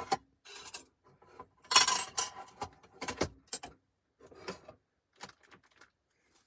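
Small objects being handled: an irregular run of light clicks, knocks and clinks with some rustling, loudest about two seconds in and thinning out near the end.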